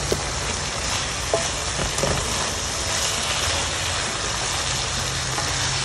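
Jackfruit and shrimp curry sizzling in a nonstick pan as a wooden spatula breaks up and stirs the pieces, with a few light knocks of the spatula. The curry is almost done, its liquid cooking down. A steady low hum runs underneath.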